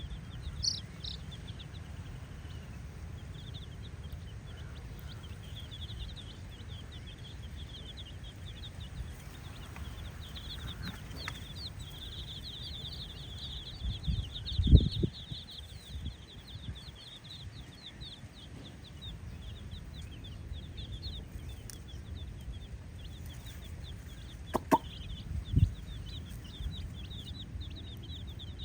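A flock of baby chicks peeping continuously, a dense stream of short high-pitched chirps that grows busiest in the middle. A couple of low thumps break in about halfway and again near the end.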